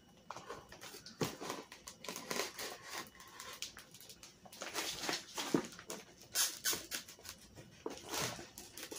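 A knife cutting and sawing into a shipping package's wrapping and tape: irregular short scrapes, squeaks and rustling of the packaging.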